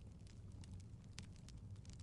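Wood fire in a fireplace crackling softly: scattered, irregular sharp pops and ticks over a low, steady rumble of the flames.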